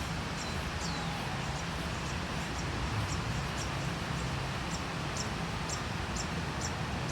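A short, high chirp repeats evenly about twice a second over a steady background hum and hiss.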